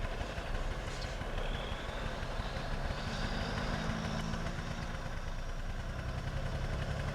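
Heavy vehicle engine running steadily at idle, with a faint high whine drifting in and out partway through.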